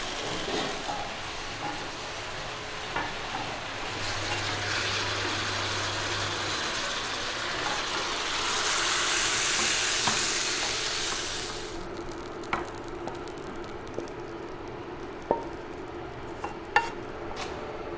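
Sliced white radish stir-frying in a wok, sizzling under a stirring spatula. The sizzle is loudest from about nine to twelve seconds in, then drops away, leaving a few sharp clinks of the spatula as the slices are scraped out onto a plate.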